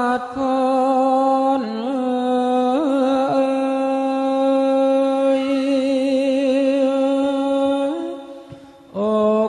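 A voice chanting the Thai royal barge song (kap he ruea) in long drawn-out notes held on one pitch, with a few ornamental turns in pitch. It breaks off briefly for breath near the end, then comes back in.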